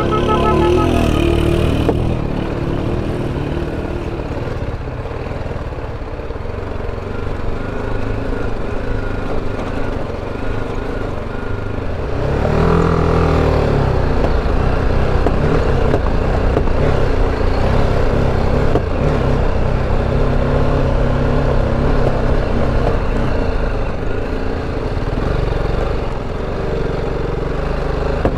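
BMW G 310 GS single-cylinder motorcycle engine running under load as the bike climbs a rough dirt mountain track, the revs rising and falling about halfway through.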